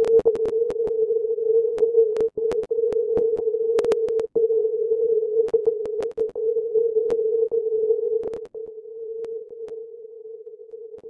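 Flex-6500 software-defined radio's receiver audio through a 50 Hz CW filter: a steady ringing note of narrow-filtered band noise at the 450 Hz CW offset, with many sharp clicks scattered over it. About eight and a half seconds in, the audio drops noticeably in level.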